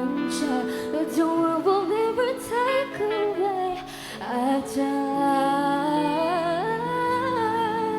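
Live reggae band music: held chords under a wavering, sliding lead melody line, with a brief drop in loudness about halfway through.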